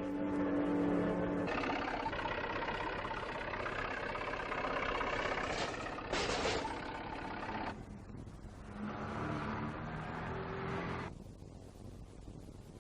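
A motor-like mechanical sound running and revving, with a short hiss about six seconds in, dying away near the end.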